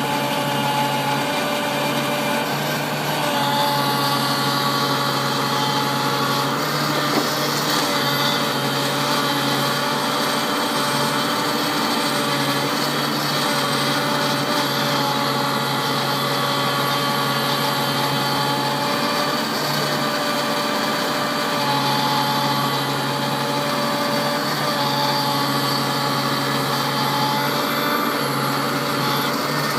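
New Holland TV-140 tractor's diesel engine running steadily, its note shifting a few times as the load changes.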